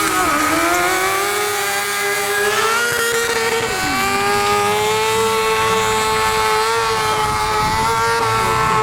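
Sport motorcycle engine held at high revs during stunt riding, its pitch dipping briefly at the start and again about four seconds in, then climbing back and holding steady.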